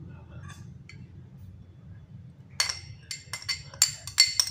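A metal spoon clinking against a small cut-glass bowl as crushed garlic is scraped and tapped out of it. It makes a quick run of about eight or nine sharp, ringing taps that starts a little past halfway.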